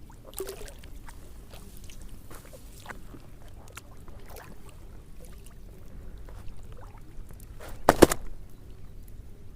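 Small water sloshes and clicks from someone moving in shallow water while handling fishing lines, with one loud thump about eight seconds in.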